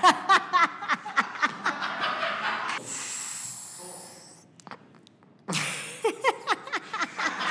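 A man laughing hard in rapid bursts with snorting breaths. About three seconds in there is a long hissing breath, then a short lull, and the laughter breaks out again near the end.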